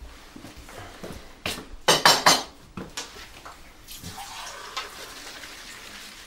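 Crockery and cutlery clattering in a kitchen sink during washing-up, with the loudest burst of clinks about two seconds in. Water runs in the sink in the later part.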